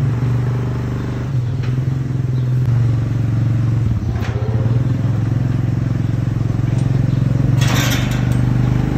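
Quad bike engine running steadily under load, towing a 2.5-tonne hoof-trimming crush. There is a brief noisy burst near the end.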